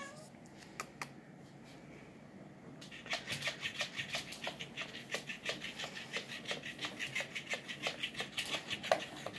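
Battery-powered robotic flopping fish toy starting up about three seconds in. Its body slaps against a wooden floor and its joints clack in a fast, even rhythm of about five clicks a second.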